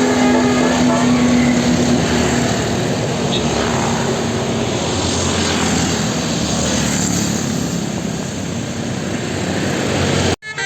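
A bus's diesel engine running loud as the bus passes, with the last held note of a musical telolet horn fading out in the first two seconds. The sound cuts off abruptly near the end.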